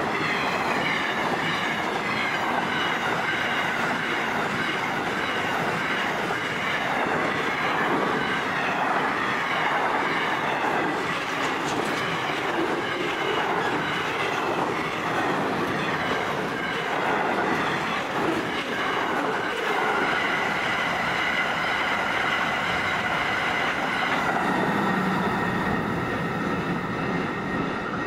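Freight wagons of a long train rolling past: steady rumble and clatter of steel wheels on the rails, with a high-pitched squeal from the wheels over the top. The last wagon passes near the end and the sound begins to fade.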